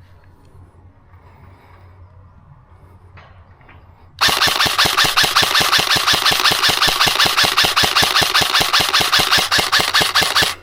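Airsoft gun firing a long full-auto burst: a loud, fast, even rattle that starts suddenly about four seconds in and stops abruptly at the end.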